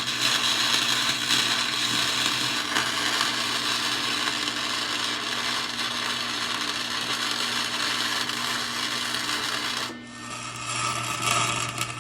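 Welding arc crackling and hissing steadily over a low electrical hum as the spider gears of a differential are welded solid. About ten seconds in, the sound cuts abruptly to another stretch of the same kind of noise.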